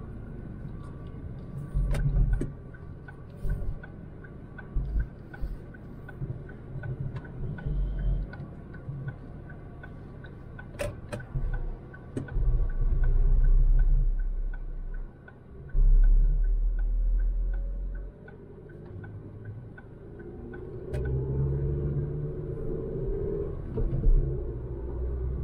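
Ford Focus 100 bhp petrol car driving: steady engine and road rumble with heavy low buffeting, and a regular light ticking, like a turn-signal indicator, for most of it. Near the end the engine note rises as the car accelerates.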